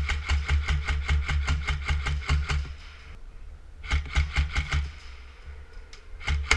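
Airsoft rifle firing full-auto in bursts, a rapid even rattle of shots: one long burst, a short burst about four seconds in, and another starting near the end.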